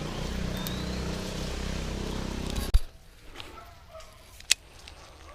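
A small engine running steadily, cut off abruptly by a sharp click after a little under three seconds. It gives way to much quieter outdoor background with faint calls and another sharp click near the end.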